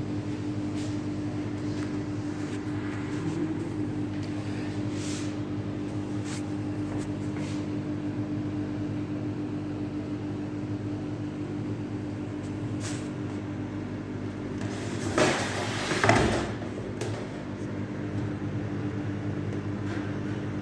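Microwave oven running as it heats food: a steady electrical hum, with a brief louder clatter about fifteen seconds in.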